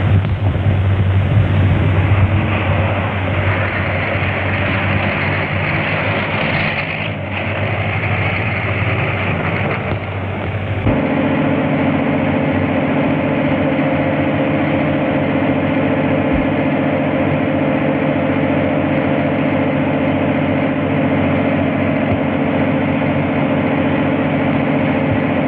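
A motor engine running loudly and steadily, its sound changing about 11 seconds in to a steadier, evenly pitched hum.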